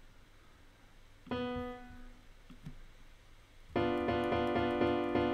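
Sampled piano playback from music notation software sounding chords as they are entered. A single chord comes about a second in. From near four seconds, a quick run of repeated chords follows, with a B diminished chord (B, D, F) on screen.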